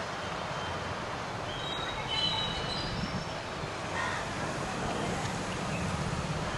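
Steady railway-yard background noise with a low hum underneath, and a few brief high-pitched tones about two seconds in.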